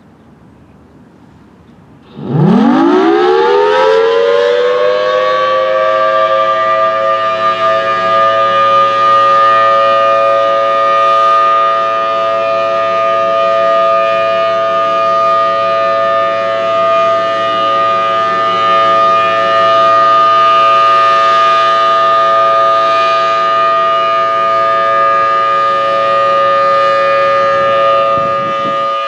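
Federal Signal Thunderbolt 1000T outdoor warning siren starting up for a test: about two seconds in it winds up with a rising wail that levels off within a few seconds, then holds a loud, steady two-note chord.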